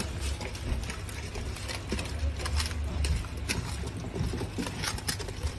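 Hand working wet masala paste into fish pieces in a steel pot: soft squelching with scattered small clicks against the metal. A steady low hum runs underneath.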